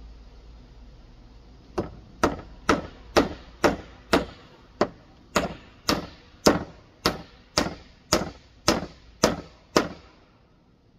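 A hammer nailing rough-sawn slab boards: a string of about sixteen sharp blows, roughly two a second, each with a short ring.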